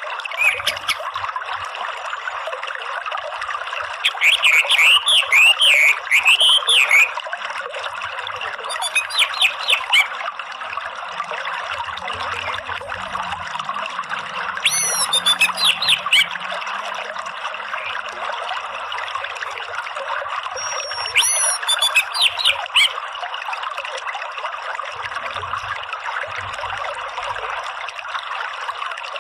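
Running stream water with an orange-headed thrush giving its rapid twittering 'ngeriwik' song in four short bursts, each lasting about one to three seconds.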